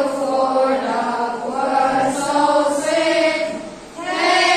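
A class of children chanting a prayer aloud together in unison, in a sing-song tone, with a brief pause for breath near the end before they go on.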